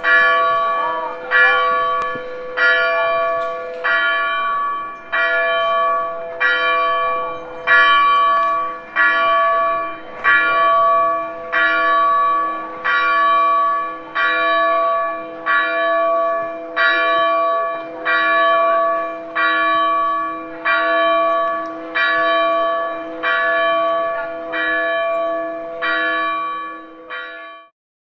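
Church bells ringing, struck in a steady rhythm about once a second, each stroke ringing on into the next. The ringing stops abruptly near the end.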